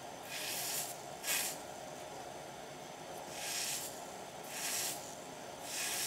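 Electrolyte-soaked pad on an electro-cleaning wand sizzling against a rusty steel oil can as current flows and strips the rust. It comes in about five short hissing bursts, one each time the pad is pressed and rubbed on the metal.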